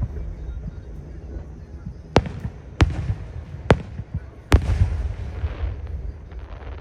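Aerial fireworks shells bursting: four sharp bangs a little under a second apart, each trailed by a low rumbling echo.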